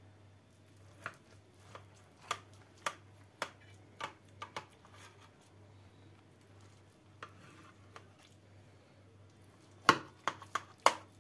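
Kitchen knife cutting through a syrup-soaked ekmek kadayıfı, its blade knocking against the enamel tray underneath in short sharp clicks. The clicks come singly and in pairs, thin out in the middle, and a loudest cluster of four comes near the end.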